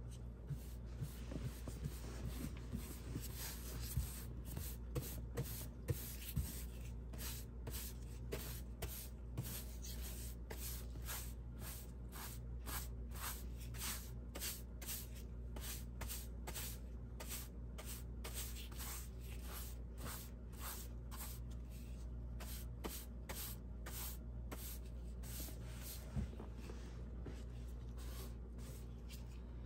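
Angled paintbrush swishing paint onto a textured wall, the bristles brushing in short strokes about twice a second, over a steady low hum.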